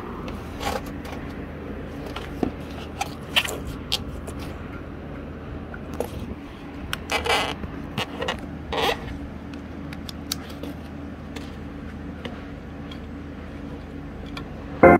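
Scrapes, rubs and light knocks of a phone camera being handled, over a steady low hum. Three loud short bursts come right at the end, as music begins playing through the speaker system.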